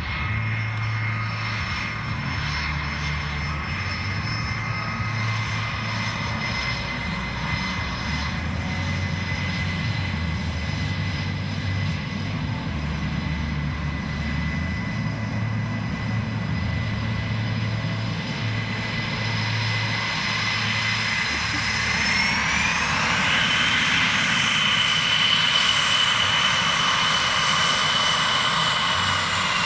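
F/A-18F Super Hornet's twin General Electric F414 turbofans whining steadily at taxi power. About 22 seconds in the whine rises in pitch and gets louder as the engines spool up, then holds at the higher pitch.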